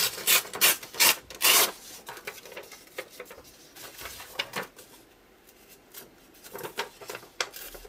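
Paper being torn by hand: several quick rips in the first couple of seconds, then softer tearing and handling of the paper, with a few more short rips near the end.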